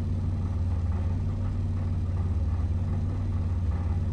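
Engine of a KITT replica car idling steadily, heard from inside the cabin as an even low hum.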